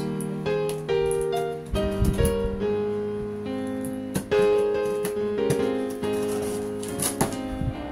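Background piano music, a steady run of notes, with a few short knocks or scrapes about two seconds in and again near the end.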